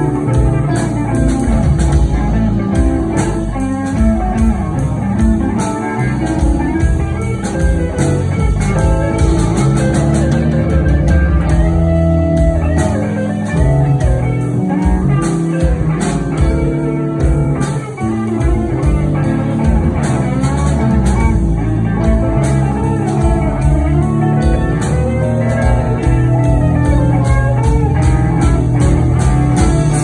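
Live blues band playing an instrumental passage: electric guitars over bass guitar, drum kit and keyboard, loud and continuous with a steady drum beat.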